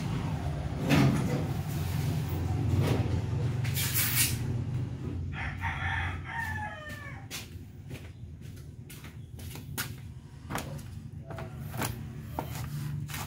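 A rooster crowing once, a drawn-out call of about two seconds with a falling pitch, starting about five seconds in. Clatter and sharp knocks come before and after it.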